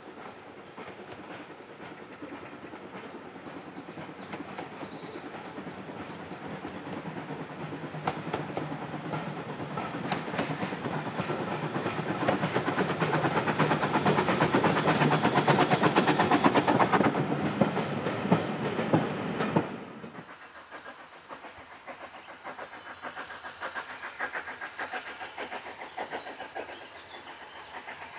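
Ex-Port Talbot 0-6-0 saddle-tank steam locomotive No. 813 hauling a train of vintage coaches past. Its exhaust and the clickety-clack of the wheels grow steadily louder to a peak, then cut off suddenly about twenty seconds in. After that a second steam train is heard more quietly, approaching.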